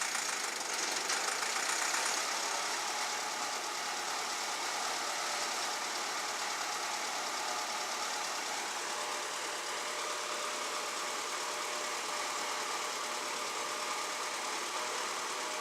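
An engine running steadily, a little louder for the first couple of seconds, then holding an even note.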